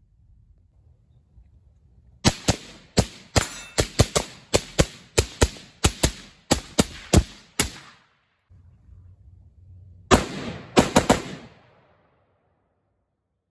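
Rapid semi-automatic fire from a short-barreled AR-15 with a 7.5-inch 5.56 piston upper: a long string of quick shots beginning about two seconds in, a pause, then a fast group of about four more shots near the end.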